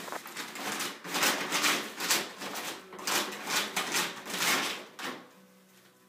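Empty dog food bag rustling in bursts, about two a second, as a puppy plays with it; the rustling dies down about five seconds in.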